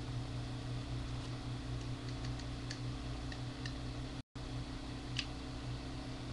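A steady low electrical hum with scattered faint clicks, like keys or a mouse being tapped, and the sound drops out for an instant just past the middle.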